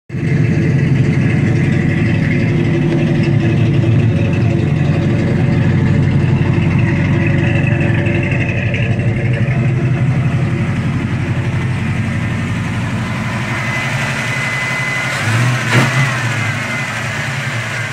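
Ford 302 small-block V8, converted from fuel injection to a four-barrel carburetor, idling steadily. Near the end there is a short rise in level and a sharp click as the throttle linkage is worked by hand.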